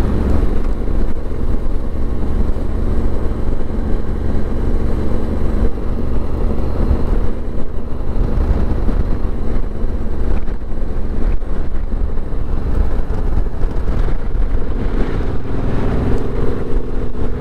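Yamaha parallel-twin motorcycle engine running steadily as the bike rides along, with road and wind noise.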